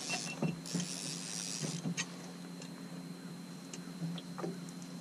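Conventional fishing reel being cranked against a hooked catfish, with scattered ticks and clicks over a steady low hum. A hiss in the first two seconds then fades away.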